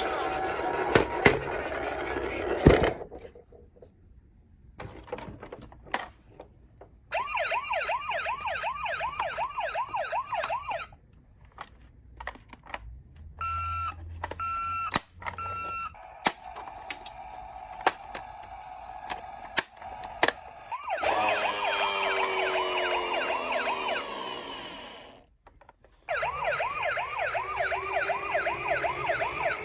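Toy emergency-vehicle minicars' electronic sirens sounding in turns: a fast up-and-down yelp, a few short beeps, a steady tone, and a siren sliding down in pitch, then the fast yelp again near the end. The opening seconds are a clattery noise with clicks.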